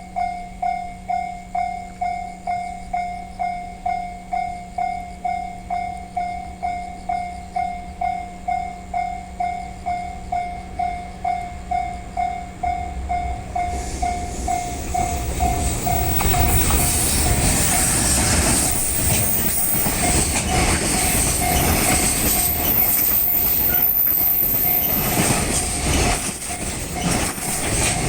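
Japanese railway level-crossing warning bell ringing in even strikes, about two a second. From about halfway a train passes over the crossing and its rumble, wheels clacking over rail joints and a high squeal drown the bell out.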